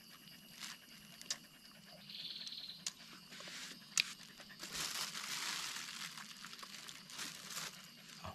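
Crinkling and rustling with scattered sharp clicks, loudest from about four and a half to six seconds in. A short high buzz sounds once, about two seconds in.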